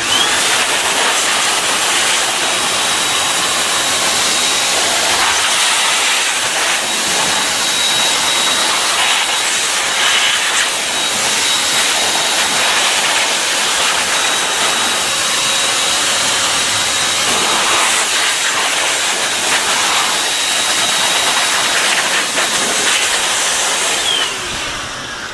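Electric air blower running steadily: a loud rushing hiss of air with a thin high motor whine. It starts abruptly and dies away near the end.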